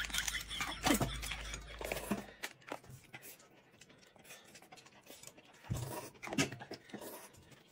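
Eating and drinking sounds: scattered clicks and clinks of tableware with mouth sounds of sipping and chewing.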